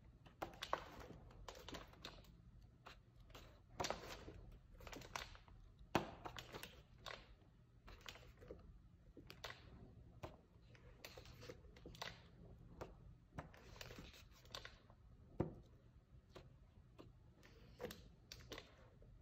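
Pages of a thick hardcover art book being turned by hand, one after another: a quiet run of short papery swishes and flaps, a couple of them sharper slaps.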